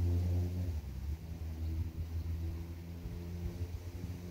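An engine running: a steady low hum that is loudest at first, fades about a second in and carries on more weakly.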